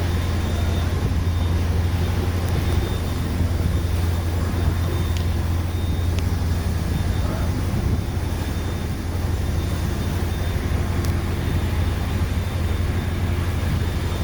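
Sailboat's inboard engine running steadily under way, a constant low drone, over a hiss of wind and water.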